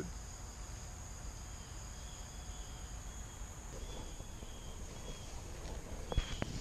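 Insects trilling steadily in a high pitch, with short chirps repeating now and then, over a low rumble of wind and handling noise. A couple of footsteps or knocks sound near the end.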